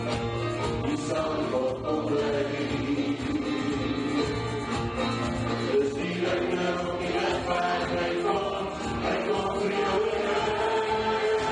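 Live church worship band playing a gospel song: grand piano and bass guitar under a group of voices singing in Afrikaans.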